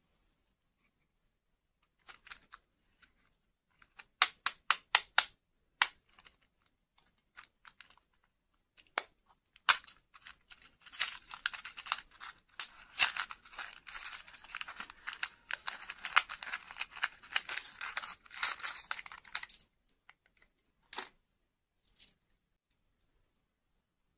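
A small cardboard toy box being torn open by hand: a dense crackling tear of about nine seconds in the middle, with a quick run of sharp taps and clicks before it and a few single clicks of handling after.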